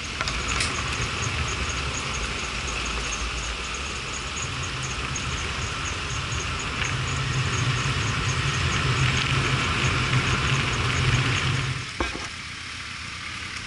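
A vehicle engine running under a steady hiss, growing louder toward the end, with a fast, regular high ticking; the sound begins and cuts off abruptly with a click about twelve seconds in.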